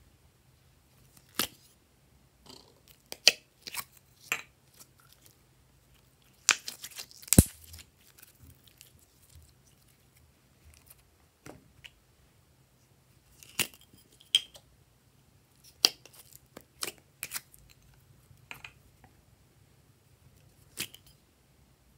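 Thin soft plastic cup of slime being squeezed and handled, crackling and clicking while sticky slime peels away from its walls. Irregular sharp clicks, with the loudest cluster about seven seconds in.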